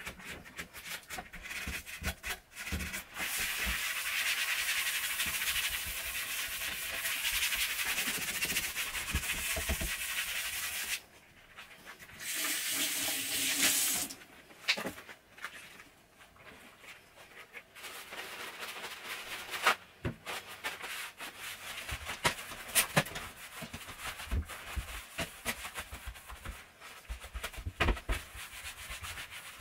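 Hand-scrubbing a stainless steel sink: steady rubbing in long stretches, then lighter rubbing and wiping with scattered knocks and clicks.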